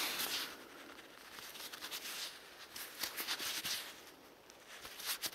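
Dug soil and forest litter rustling and crackling as it is sifted by hand in search of a small coin, in irregular spells of short crackles.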